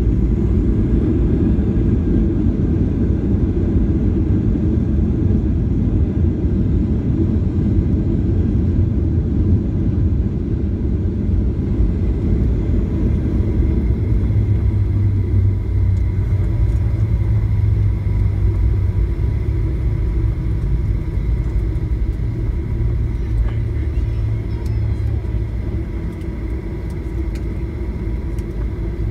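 Steady low rumble of a Boeing 737 airliner heard from inside the cabin as it rolls out and slows on the runway after touchdown: engine and wheel noise. A deeper steady hum joins about halfway through, and the rumble eases slightly near the end as the plane slows.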